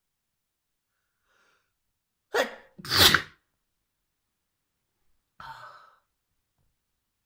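A person sneezing: a faint breath, then one loud sneeze in two quick parts about two and a half seconds in, followed by a shorter, quieter burst about five and a half seconds in.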